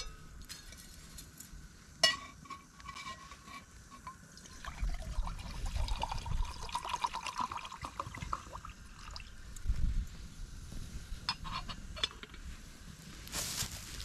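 Water poured from a bottle into a titanium mug, running and trickling for about four seconds and rising slightly in pitch as it fills. A sharp click about two seconds in is the loudest sound.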